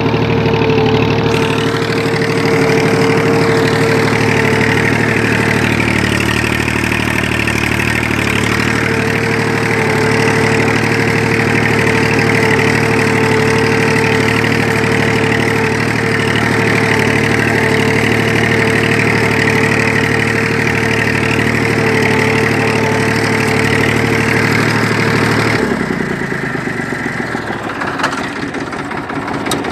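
Tafe 42 DI tractor's diesel engine running steadily while ploughing, with a constant whine over the engine note. About 26 seconds in, the engine note drops and gets quieter as the revs come down.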